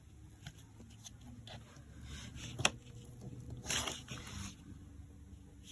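Faint handling of paper and craft tools: light ticks, one sharp click about two and a half seconds in, and a brief rustle of paper near four seconds in.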